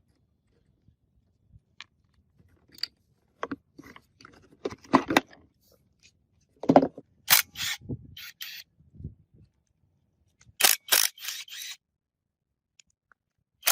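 Hand-tool work on metal engine parts: a series of separate clinks and knocks, with short scraping rasps about halfway through and again near the end.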